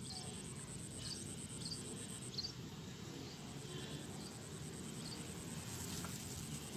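Insects trilling steadily in a high, fast-pulsing buzz, with short high chirps every second or so over a low background hum.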